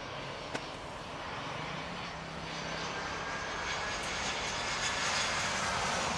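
Airbus A320 airliner's jet engines on final approach, low over the runway, a rushing roar with a high whine that grows louder as the aircraft passes close. There is a short click about half a second in.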